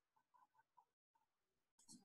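Near silence, with a few faint short sounds and a brief complete dropout about a second in.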